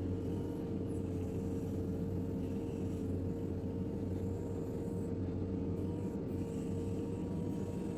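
JCB 3DX backhoe loader's diesel engine running steadily, with a constant whine over the low rumble.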